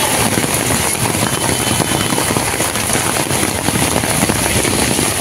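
Steady rain falling on a flooded street, with the crackle of drops and vehicle engines running in the floodwater.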